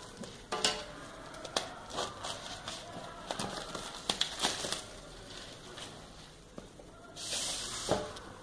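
A smartphone retail box being handled and opened: crinkling of cardboard and plastic with scattered taps and clicks, and a longer rustle near the end.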